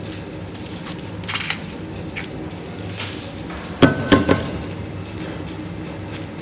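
Metal parts clinking and clanking over a steady workshop machine hum, with a louder cluster of ringing metal-on-metal strikes about four seconds in.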